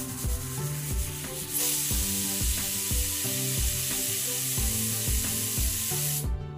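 Pressure cooker whistle venting steam in one long hiss that starts about a second and a half in and cuts off sharply near the end. It is the whistle that marks full pressure and counts the cooking time. Background music with a steady beat plays throughout.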